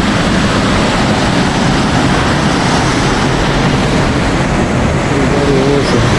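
Loud, steady rushing noise with a gusty low rumble: wind buffeting the microphone at an open lookout.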